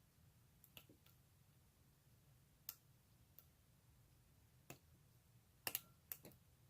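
Faint, scattered clicks of a pick working the pin stacks inside a brass padlock held under tension, with a quick cluster of clicks near the end.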